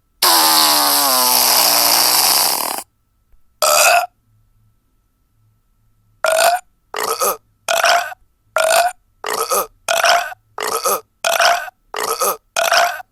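Recorded burp sound effects from a prank soundboard app: one long burp lasting nearly three seconds, a short burp, then after a pause a quick string of about a dozen short burps, roughly two a second.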